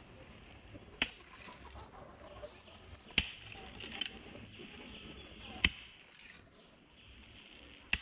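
Digging hoe blade striking soil as a pit is dug: four sharp strokes about two and a half seconds apart.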